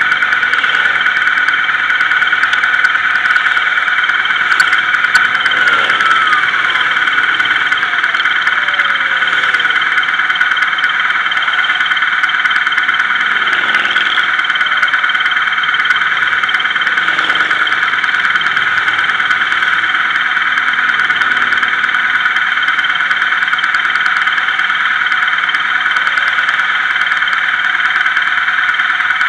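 Highway traffic and motorcycles passing on an interstate, a few of them falling in pitch as they go by, over a steady high-pitched hum.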